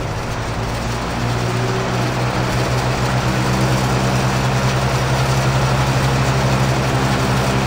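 Montgomery Ward Tru-Cold VLP2509-0 four-blade box fan with a Westinghouse motor, running just after being switched on: a steady motor hum with the rush of air from the blades. It grows louder over the first few seconds as it comes up to speed, then holds steady.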